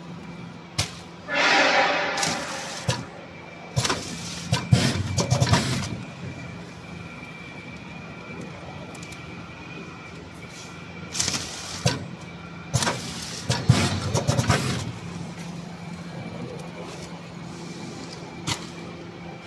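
A 1 kg powder packing machine running under a steady hum. A short hiss comes about a second and a half in, and clusters of clacks and thumps follow as bags are sealed and dropped, in two rounds about eight seconds apart.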